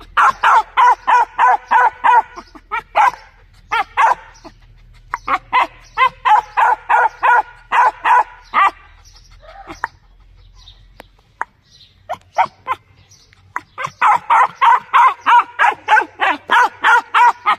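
A young dog barking in fast runs of short barks, several a second, with brief pauses between runs. The barking thins out and gets quieter about halfway through, then comes back in a long, loud run near the end.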